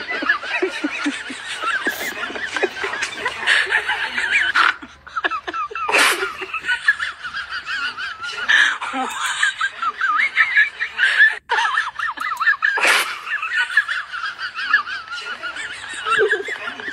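Several people laughing, snickering and chuckling without a break, with a few sudden louder bursts of laughter.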